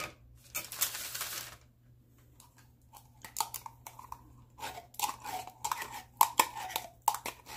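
A brief rustle of paper, then a run of light metal clicks and scrapes as a metal scoop works tomato paste out of a tin can.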